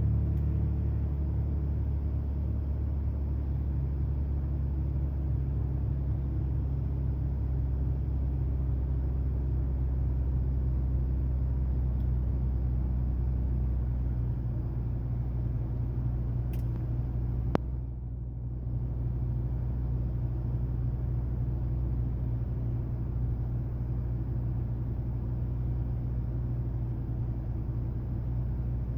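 The 3.5-litre V6 of a 2006 Infiniti G35x idling in Park, heard from inside the cabin, shortly after a cold start. Its fast idle settles lower about halfway through. There is a single sharp click a little past halfway, followed by a brief dip in the engine sound. The owner brings the car up over sputtering and hesitation on cold starts.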